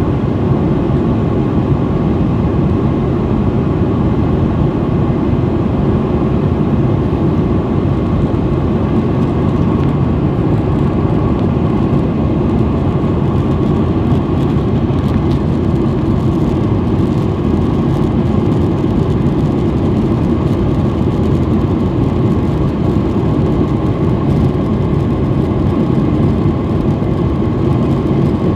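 Jet airliner cabin noise in cruise flight: the steady, even rumble of engine and airflow noise heard from inside the passenger cabin.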